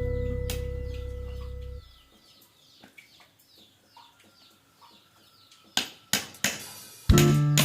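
Strummed acoustic guitar music rings out for about two seconds and stops. A quiet gap follows, with faint repeated short bird calls and a few sharp knocks. The guitar music starts again near the end.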